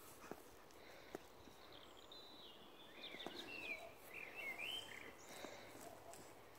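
Faint, scattered scratches of two young Rottweilers digging in loose soil, under a songbird singing a warbling phrase of quick gliding notes from about two seconds in to about five seconds; the bird is the loudest sound.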